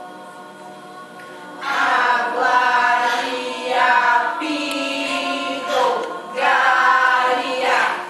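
Mixed youth choir singing: a soft held chord, then about a second and a half in the full choir comes in loudly.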